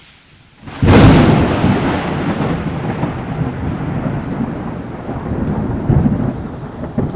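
A thunderclap cracking suddenly about a second in, then rolling on in a long rumble that slowly fades, with another swell of rumbling near the end.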